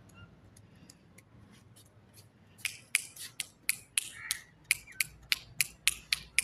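A person snapping their fingers repeatedly, sharp snaps at about three a second, starting a little over two seconds in.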